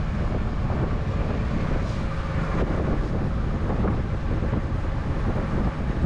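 Farm machinery engine running steadily, with wind on the microphone.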